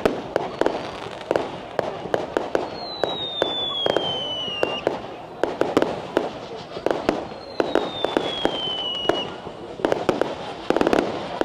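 Fireworks display: many sharp bangs and crackles in quick succession, with two long whistles that fall in pitch, one about three seconds in and another about halfway through.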